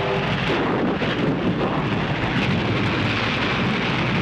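Steam locomotive running hard through a rainstorm: a steady, dense rushing of rain and wind over the train's running noise. A steady whistle tone dies away just after the start.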